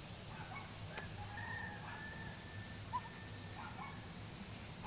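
A faint bird call in the distance: one long, drawn-out call at a nearly steady pitch, with a short click about a second in.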